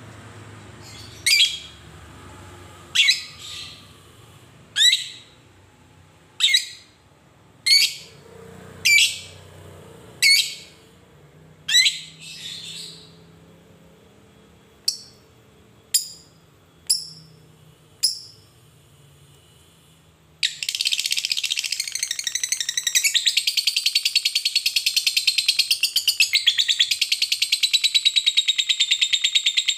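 Fischer's lovebird calling: about a dozen sharp single chirps, one every second or so, then about two-thirds of the way through it breaks into a loud, continuous rapid chattering trill, the long 'ngekek' song prized in fighter lovebirds.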